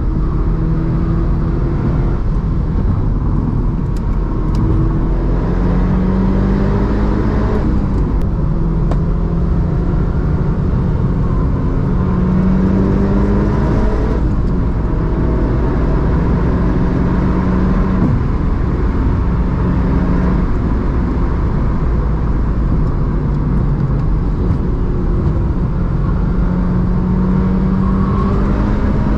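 Mitsubishi Lancer Evolution 6.5 Tommi Mäkinen Edition's turbocharged 4G63 four-cylinder pulling hard up a winding road: the engine note climbs through the revs and drops back at each shift or lift, several times over, under a steady road rumble.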